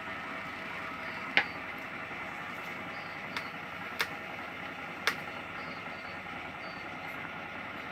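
Steady machine hum, with four sharp clicks a little over a second apart; the first click is the loudest.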